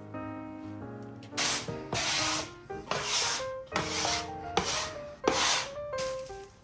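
Six rasping back-and-forth strokes, each about half a second long, starting about a second and a half in, over background music.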